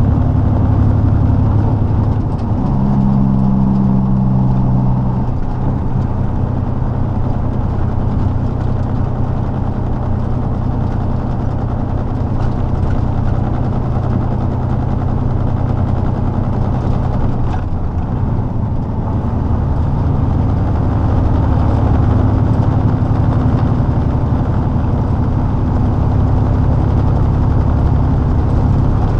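Diesel semi-truck engine running as the truck drives, heard from inside the cab as a steady low drone mixed with road noise. Between about two and five seconds in the engine note gets stronger and higher, then settles back.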